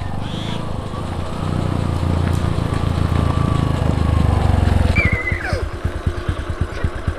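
Motorcycle engine running and growing louder as the bike rides closer, then from about five seconds in dropping to an idle with an even, quick low pulse of about seven beats a second.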